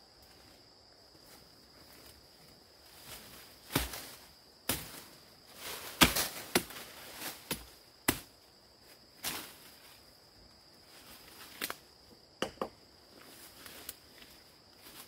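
Wood being chopped by hand: irregular sharp strikes, about a second apart, starting a few seconds in. A steady high-pitched drone of insects, crickets or cicadas, runs underneath.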